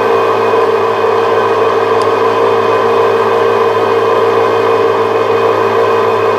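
Tsugami CNC lathe spindle and its belt drive running steadily at about 500 RPM, a constant machine hum with a whine made of several steady tones. A faint click about two seconds in.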